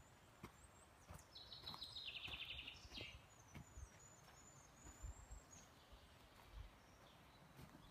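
Faint songbird song in a forest: a fast trill that steps down in pitch, about a second and a half in, followed by a thin, very high song. Soft footsteps on the forest floor sound underneath.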